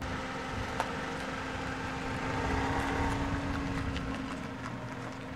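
Toyota Camry pulling out of a parking space, its engine running with a steady hum and tyre and road noise that swell a little about midway.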